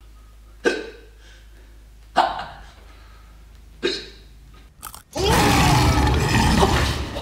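A man hiccuping three times, each a short sharp 'hic' about a second and a half apart. About five seconds in comes a much louder, noisy sound lasting about two seconds.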